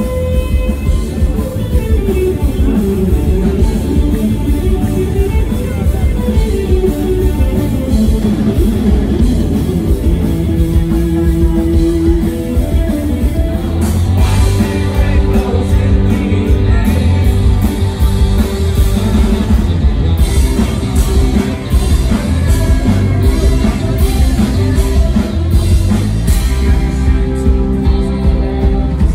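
A live psychedelic rock band playing loudly: electric guitars, bass and drum kit, with singing. About halfway through the drums and cymbals grow busier.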